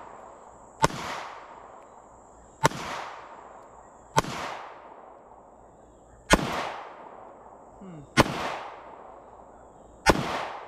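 Six shots from a Mossberg MC1sc 9mm pistol, fired one at a time about every two seconds, each followed by a short echoing tail.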